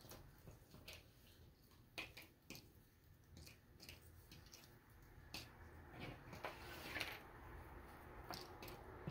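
Faint, scattered clicks and rustles of cardboard jigsaw puzzle pieces being pulled apart and dropped onto loose piles.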